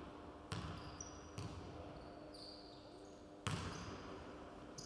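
Basketballs bouncing on a hardwood court in a large, echoing gym: about five irregular thuds, each ringing on briefly in the hall, with a few short, high sneaker squeaks on the floor between them.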